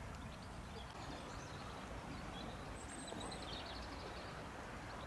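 Faint outdoor ambience: a steady low hiss, with a few faint bird chirps about three seconds in.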